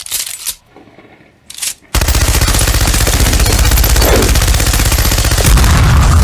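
A few short sharp sounds, then about two seconds in a loud, unbroken run of rapid automatic gunfire that carries on through the rest.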